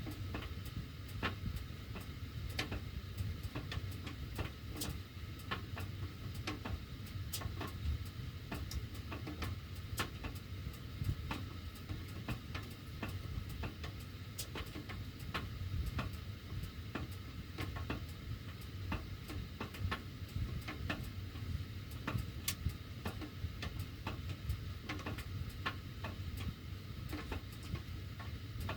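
Sheet-metal heating ductwork ticking and clicking irregularly, a few sharp ticks a second, while the heat is running, over a steady low rumble.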